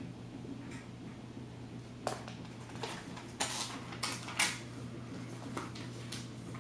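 A scattering of light clicks and scrapes over a steady low hum, the clearest ones about two, three and a half, and four and a half seconds in.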